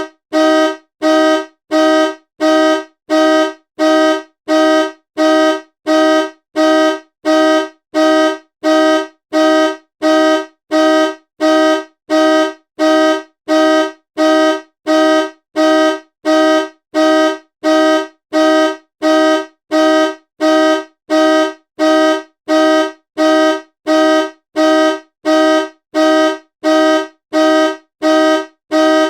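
Car horn honking in short, evenly repeated blasts, a little over one a second, two low notes sounding together in each blast.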